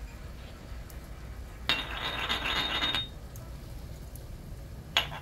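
Hand-turned spice grinder twisted over a pan, one steady grind of just over a second starting a little under two seconds in.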